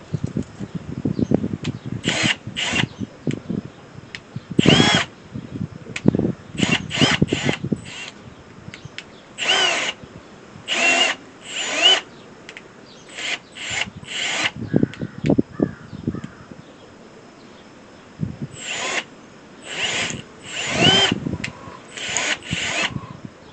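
Power drill run in about a dozen short bursts of a second or less, its motor pitch rising and falling with each trigger pull, as a splice on a hay baler belt is worked in.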